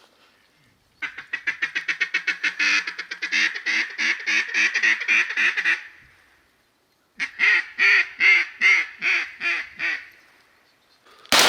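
Mallard-style duck quacking: a long, rapid run of quacks, about six a second for some five seconds, then after a short pause a second run of about ten louder, slower quacks. A shotgun shot goes off right at the end.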